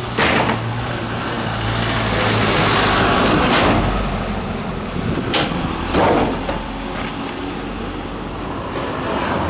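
A motor vehicle engine running nearby with a steady low hum. Its noise swells for a couple of seconds about two seconds in, and a few short knocks sound over it.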